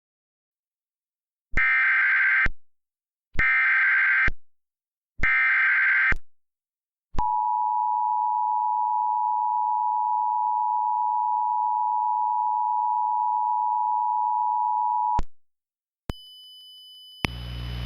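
Emergency Alert System tones announcing a tornado warning. Three short bursts of SAME digital header data sound as a harsh warbling screech, followed by the two-tone attention signal held for about eight seconds. Near the end a faint high tone comes in, then a rising hiss and hum.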